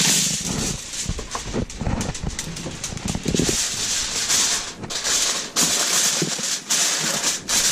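Aluminum foil crinkling and rustling as a sheet is torn off the roll and pressed down over a baking dish, with an irregular crackle throughout.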